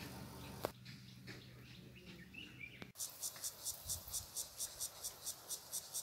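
Cicada singing, a high-pitched pulsing buzz of about five pulses a second that starts suddenly about three seconds in. Before it there is only faint background hum and a single click.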